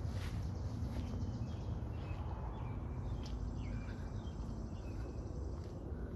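Outdoor ambience: small birds chirping in short notes over a steady low rumble.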